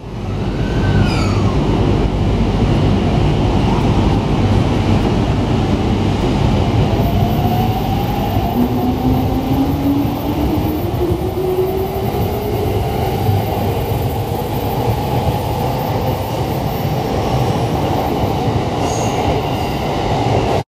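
Electric commuter train pulling out along a platform: a steady rumble of wheels on rail with the traction motors' whine rising slowly in pitch as the train gathers speed.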